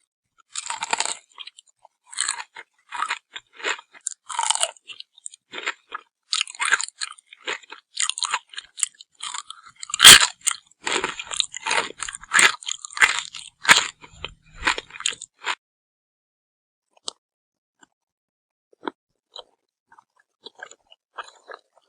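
Close-miked crunchy chewing and biting, a rapid irregular run of crisp crunches with one much louder crunch about halfway through. The crunching stops around two-thirds of the way in, leaving only a few faint scattered clicks.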